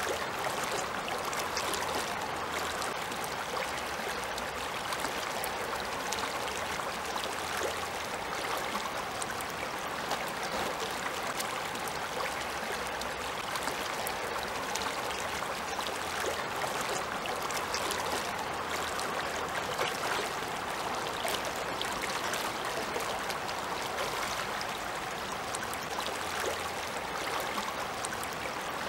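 Shallow river water running over a stony bed: a steady rush of water with small splashes throughout.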